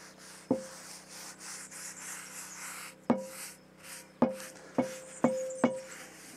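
Paper towel rubbing oil over a cast-iron Dutch oven's lid, with six sharp metallic clinks from the cast iron, each ringing briefly, most of them bunched in the second half.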